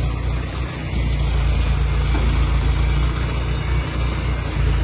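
Large diesel engine running steadily at low speed, an even low drone that briefly dips about a second in.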